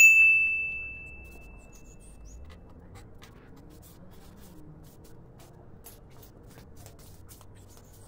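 A single clear bell-like ding struck right at the start, ringing out and fading over about two seconds, followed by faint scattered small clicks and taps.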